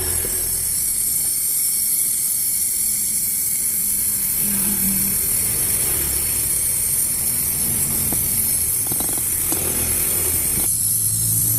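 Compressed gas hissing steadily through refrigerator tubing during flushing of the refrigeration system. Near the end the hiss changes and a low motor hum comes in.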